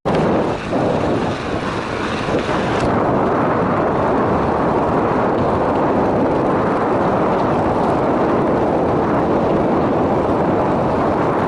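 Loud, steady rushing of wind over the microphone mixed with tyre noise, from a bicycle riding along a gravel rail trail.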